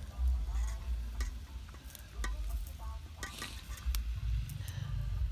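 Kitchen knife slicing an onion held in the hand over a steel bowl: irregular crisp clicks as the blade cuts through and pieces drop in, over a low rumble of wind on the microphone.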